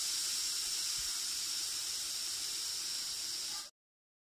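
Steam hissing steadily out of an aluminium pressure cooker's weight valve, held up with a metal utensil to release the pressure after the rice has cooked. The hiss stops abruptly near the end.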